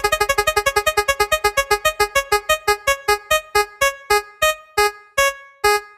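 Electronic spinning-wheel sound effect: a fast run of short keyboard-like notes that slows steadily to a couple of notes a second and stops, like a prize wheel ticking to a halt.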